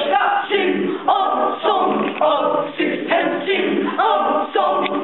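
High school madrigal choir of mixed voices singing a cappella in rehearsal, moving from one held note to the next about once a second.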